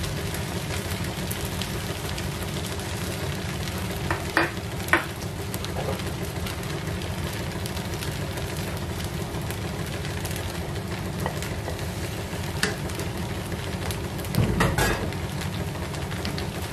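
Egg fried rice sizzling in a nonstick frying pan while a wooden spatula stirs and turns it. There are a few sharper knocks of the spatula against the pan, the loudest cluster near the end.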